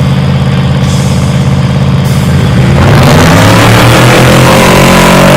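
Off-road race truck's engine running steadily, then throttled up about two and a half seconds in: it gets louder and rougher and its note climbs as the truck accelerates.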